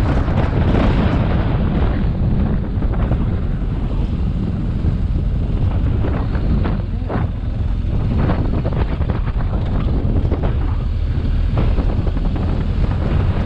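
Wind rushing and buffeting over the microphone of a BMW R 1250 GS motorcycle on the move, with a low rumble of its boxer-twin engine underneath. The wind comes in short gusts.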